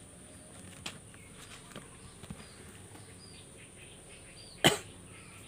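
Small clicks and then one sharp knock near the end as a motorcycle starter relay and its plastic connector are handled, over faint bird chirping.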